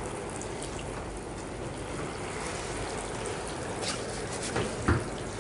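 Water pouring over a soil watershed model as simulated rain: a steady trickling splash. A couple of brief knocks come near the end.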